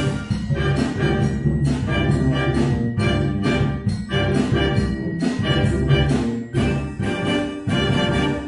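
Concert wind band playing live, with brass to the fore and many short, sharp accented chords over a sustained low line.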